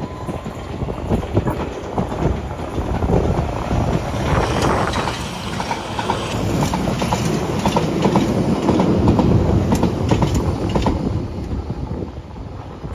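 London Underground Piccadilly line 1973-stock train running past close by, its wheels clattering over the rail joints in quick groups of clicks over a steady rumble. It is loudest about two-thirds of the way through, then fades.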